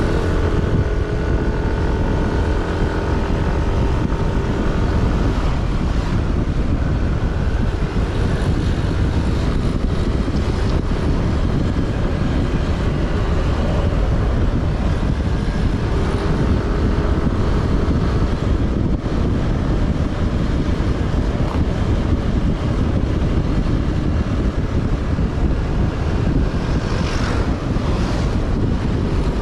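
A vehicle on the road: a steady low rumble of engine and road with wind noise over the microphone. An engine's hum stands out over the first few seconds and again around the middle.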